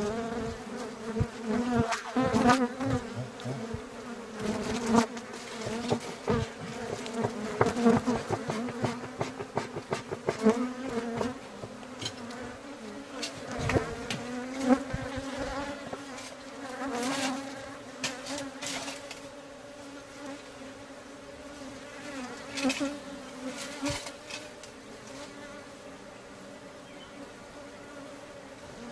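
Honeybees buzzing close by, a steady hum that wavers in pitch as bees move about, with frequent sharp taps and knocks through the first two-thirds. The bees are agitated and defensive.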